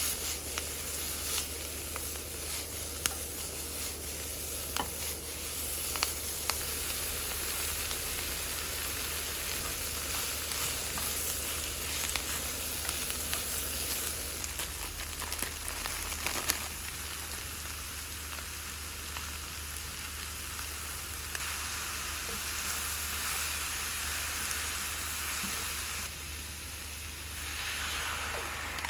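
Yaki udon ingredients sizzling steadily in a frying pan as they are stir-fried, with a few sharp clicks of a utensil against the pan, the loudest about sixteen seconds in.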